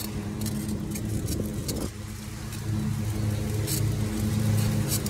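Lawn mower engine running steadily, growing louder about halfway through, with scattered clicks and rattles over it.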